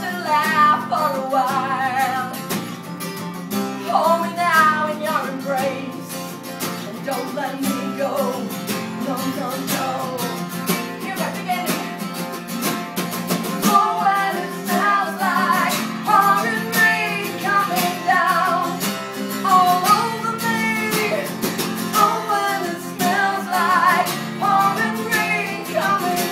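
A woman singing a song to her own strummed acoustic guitar, her voice holding long, wavering notes over the chords.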